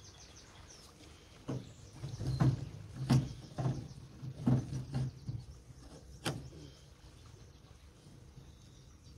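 A run of hollow knocks and clunks on the boat, about seven over five seconds, as a fishing rod and gear are handled at the rod holder.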